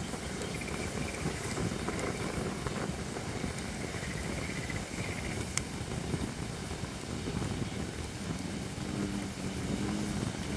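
Holly firewood burning in a campfire: a steady rush of flame with scattered crackles and one sharper pop about halfway. A low, repeating call comes in near the end.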